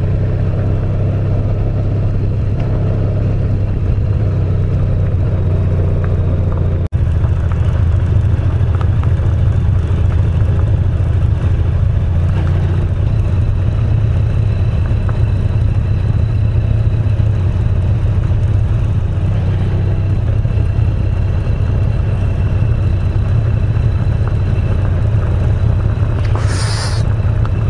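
Honda VFR1200X's V4 engine running steadily at low speed on a gravel road, a deep continuous rumble with tyre and wind noise over it. The sound drops out for an instant about seven seconds in, and a short hiss comes near the end.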